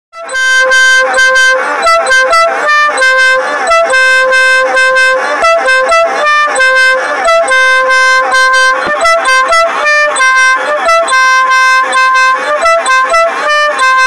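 Multi-trumpet musical air horn playing a tune: loud, clear notes of several pitches that switch quickly from one to the next, some short and some held.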